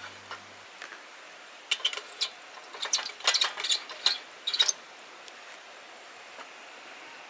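Light, sharp clinks and clicks of small hard objects being handled, about a dozen in a cluster over three seconds, just after a strummed guitar tune dies away.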